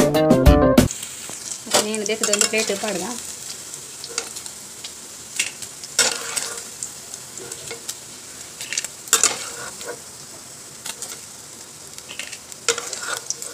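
Paneer cubes frying in ghee in a nonstick pan: a steady sizzle, with a spatula clicking and scraping against the pan every few seconds. Guitar music cuts off about a second in.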